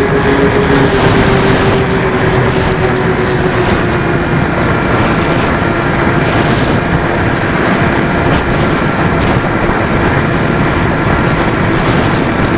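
Aircraft engine and propeller running steadily with one held drone tone, under heavy rushing wind noise.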